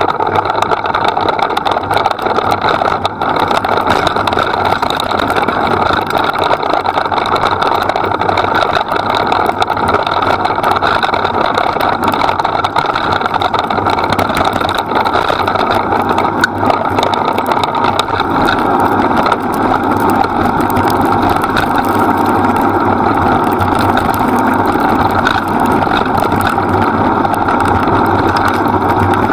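Dryland mushing rig pulled at speed along a dirt track by two dogs: a steady, loud rolling and running noise with wind on the microphone, unbroken throughout.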